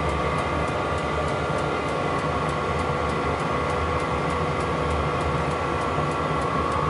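Small diesel space heater running steadily: a constant whir and hum from its fan and combustion blower, with faint regular ticks throughout. It is burning stably after startup.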